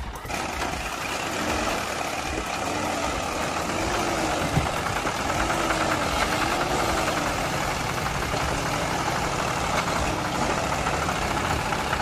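Small electric motors of homemade remote-control toy tractors running, making a steady engine-like mechanical noise that comes on at the start.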